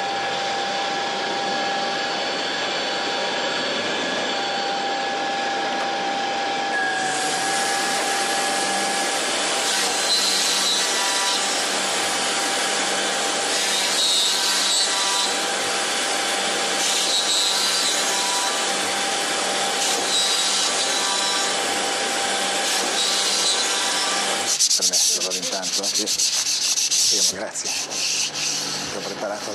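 Overhead router running with a steady whine while its bit cuts a row of slots into a wooden accordion board; the cutting noise swells about every two and a half seconds as each slot is cut. Near the end the machine sound gives way to the slotted wooden board being rubbed and sanded by hand.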